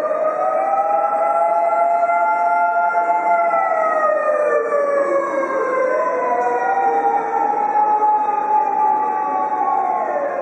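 Fire engine siren wailing in long, slow sweeps, falling and rising in pitch: the wail dips low about five seconds in, climbs back and holds, then falls again near the end.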